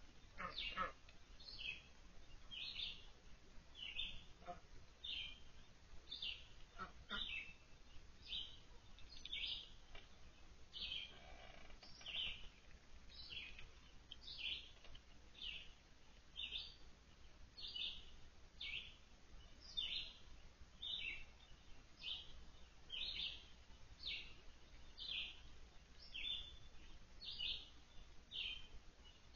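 A bird calling over and over: a short, high note repeated steadily about every three-quarters of a second.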